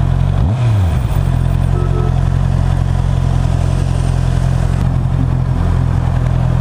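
Honda CB650R's inline-four engine running at low, steady revs through its stock exhaust while riding, with a brief dip and pick-up in the engine note about half a second in.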